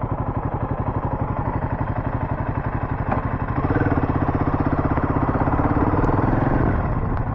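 Royal Enfield 452's single-cylinder engine idling with an even, rapid beat. A second steadier engine note rises over it for about three seconds in the middle, then fades.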